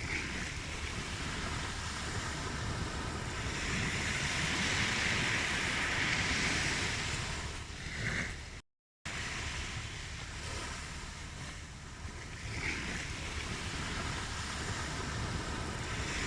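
Ocean waves breaking and washing on a shore, swelling and ebbing, with the surf loudest a few seconds in. The sound cuts out completely for a split second about nine seconds in, then carries on.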